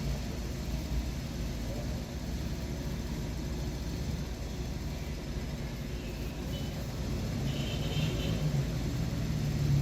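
Steady low rumble of a running vehicle, with a low hum that grows a little stronger near the end.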